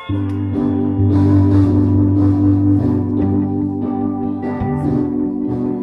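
Live instrumental rock band playing loud: electric guitar and drum kit over keyboard and a heavy low line. The full band comes in all at once right at the start.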